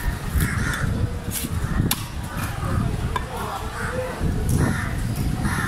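Large knife chopping into a skipjack tuna on a wooden block, a few sharp knocks, the loudest about two seconds in, over steady background voices.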